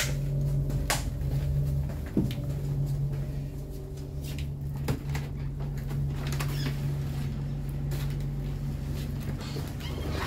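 Steady low hum inside a narrow-gauge diesel train's passenger coach, with a few sharp clicks and knocks scattered through it.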